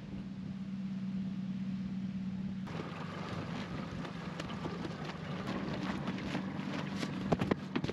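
A boat's outboard motor runs with a steady low hum. About a third of the way in, the sound changes abruptly to wind rushing past as the boat runs, with a cloth flag flapping and snapping irregularly. The snaps are loudest near the end.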